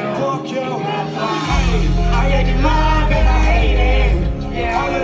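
Live rock music played loudly over a concert sound system, with singing over it. A heavy low bass comes in about a second and a half in and drops back near the end.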